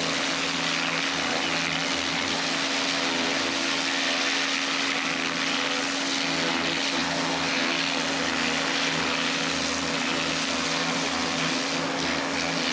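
Kärcher pressure washer running steadily: a constant motor-and-pump hum under the hiss of the water jet blasting dirt off cobblestones.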